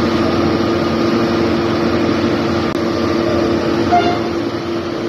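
PNR DHL 9003 diesel-hydraulic locomotive's engine running steadily at a constant pitch, a low droning hum. A short higher-pitched blip comes about four seconds in.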